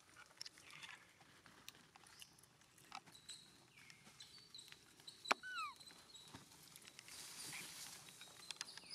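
Faint forest rustling of leaves and twigs with scattered sharp clicks as macaques move about, a short falling squeak about five seconds in, and thin high whistling tones.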